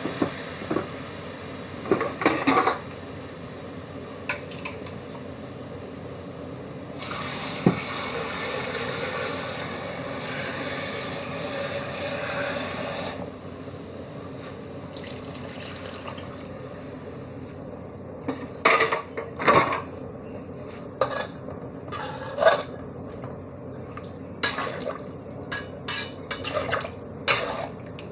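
Metal spatula scraping and knocking against a wok as a vegetable curry is stirred, in clusters of clicks near the start and through the last ten seconds. In the middle comes a stretch of about six seconds of liquid pouring.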